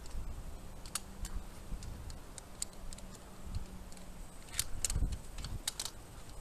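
Via ferrata lanyard carabiners clinking on the steel safety cable: scattered sharp metallic clicks, loudest in a cluster about two-thirds of the way through, over low rumbling handling noise.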